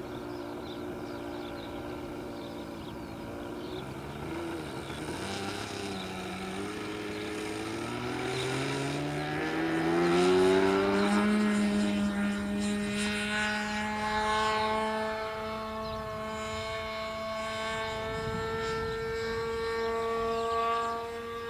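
Radio-controlled trainer plane's engine idling, then opening up to full throttle for the takeoff run, its pitch climbing over several seconds and loudest about ten seconds in as the plane passes. It then runs steadily at a high pitch as the plane climbs away.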